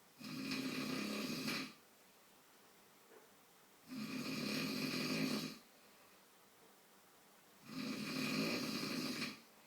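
A man snoring: three snores, each about a second and a half long, coming roughly every four seconds with quiet breathing gaps between.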